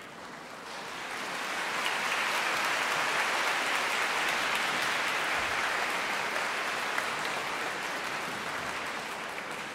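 Concert hall audience applauding, greeting the performers as they walk onto the stage. The clapping swells over the first two seconds, holds, then slowly thins out.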